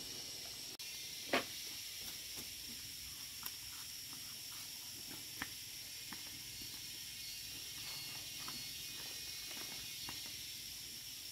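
Quiet background with a steady high-pitched hiss, broken by one short sharp sound about a second in and a few faint scattered ticks.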